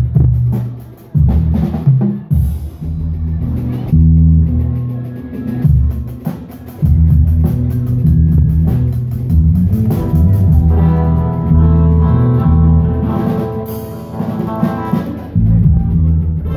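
Live Andean folk band playing: drum kit, bass and guitars, with panpipes at the microphones. The band plays in short stops and starts at first, then settles into a steady groove about seven seconds in, with a higher melody line joining a few seconds later.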